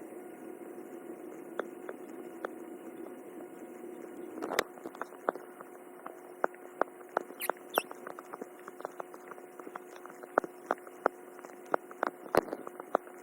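Cat kneading, its claws making irregular sharp clicks as they catch and pull. The clicks are sparse at first and come several a second from about four and a half seconds in, over a steady low hum.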